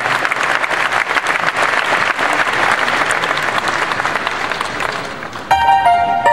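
Large audience applauding, thinning out after about five seconds. Near the end the live band comes in with a few clear, held pitched notes.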